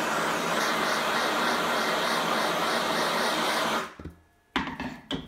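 Handheld gas blowtorch burning with a steady hiss, its flame played against a galvanized steel bucket; it cuts off about four seconds in, and two short knocks follow near the end.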